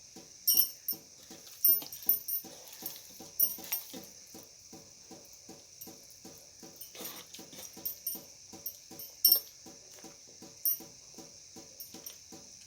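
Hands mixing and squeezing wet chilli-and-salt masala into small Indian mackerel in a bowl: a rhythmic squelching about four to five times a second, with a few sharp clicks early on and once later.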